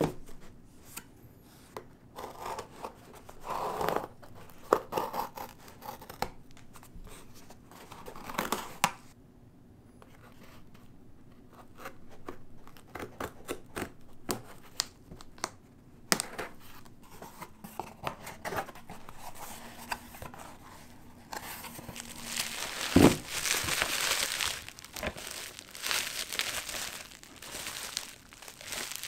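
Packing tape on a cardboard box being slit with a thin metal pick and torn open, in scratchy bursts and clicks. Over the last several seconds bubble wrap crinkles and rustles steadily as it is handled, with a single thump partway through.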